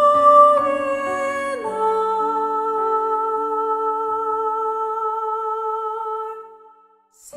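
Slow worship song: a long held note fades out to a brief pause, and the music comes back in near the end.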